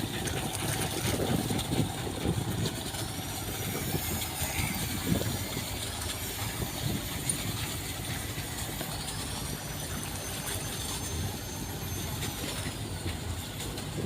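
A motor running with an uneven low rumble, and a faint high whine that rises and falls slowly in pitch, held level for a few seconds in the second half.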